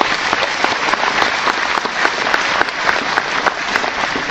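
An audience applauding, many hands clapping at once in a dense, steady applause.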